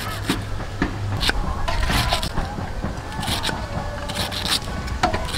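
Knife slicing thin rounds off a raw banana stem on a wooden chopping block: a series of crisp, uneven cuts about once a second.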